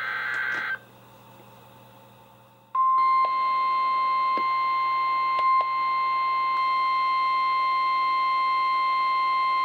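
NOAA Weather Radio 1050 Hz warning alarm tone, played through a weather radio receiver: after a brief burst of sound and a pause of about two seconds, one steady tone starts and holds, with a few faint clicks. The tone signals that an urgent weather warning is about to be broadcast.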